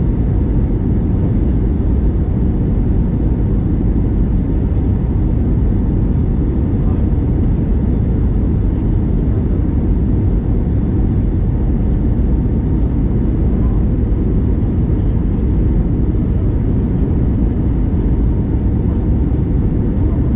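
Steady low rumble of an Airbus A321neo airliner heard from inside the passenger cabin: engine and airflow noise with no change in pitch or level.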